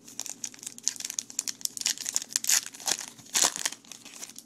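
Plastic foil wrapper of a trading-card pack being torn open and crinkled: a quick run of sharp crackles, with the loudest tears about two and a half and three and a half seconds in.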